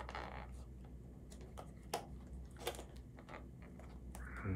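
Fingers picking and scratching at the sealing sticker on a cardboard product box, which is not coming off easily: faint scattered clicks and taps with a short scrape at the start.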